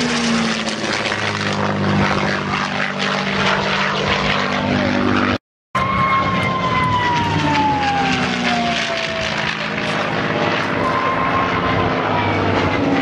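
Propeller-driven piston-engined aircraft flying a display pass, its engine note sliding slowly down in pitch as it goes by. The sound cuts out for a moment about five seconds in, then a second pass follows with the same falling note.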